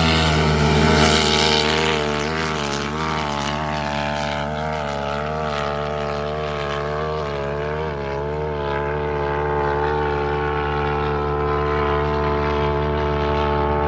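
Side-by-side engines, a Can-Am Maverick X3 Turbo R and a Polaris, at full throttle in a drag race: the revs climb sharply at the start, then hold at a steady high pitch.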